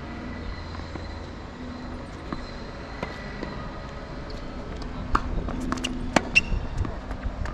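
Strong wind buffeting the microphone on an outdoor tennis court as a steady low rumble. From about five seconds in there are several sharp knocks of tennis ball play.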